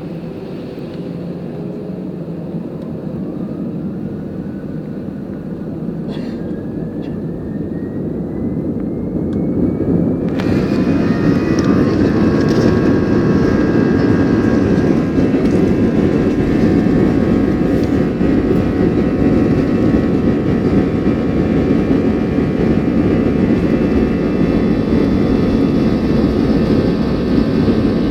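An Airbus A320's jet engines spooling up for the takeoff roll, heard from inside the cabin. A whine rises steadily in pitch as the engines wind up, then about ten seconds in they reach takeoff thrust and a loud, steady engine roar holds.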